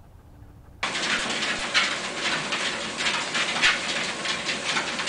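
Dachshunds trotting on a running treadmill: a steady rushing of the belt and motor that starts suddenly about a second in, with quick uneven taps of paws on the belt.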